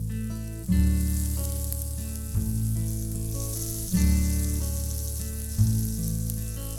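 Background music with sustained chords that change about every second and a half, over a steady sizzle of food frying.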